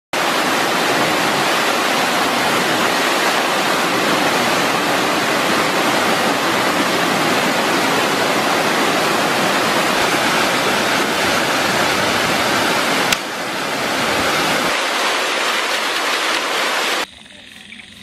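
Waterfall pouring into a rocky pool: a steady, loud rush of falling water with a brief break about thirteen seconds in. It drops away sharply near the end.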